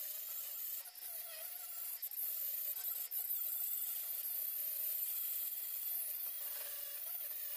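Cordless angle grinder grinding down welds on the steel heater channel of a 1954 VW Beetle, running steadily with a high whine whose pitch wavers slightly as the disc bears on the metal.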